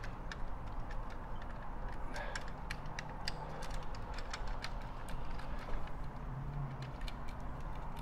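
Irregular light clicks and ticks of stiff insulated wires and fingers knocking against the plastic housing of a Tesla Wall Connector as the stranded leads are pushed up into its terminals.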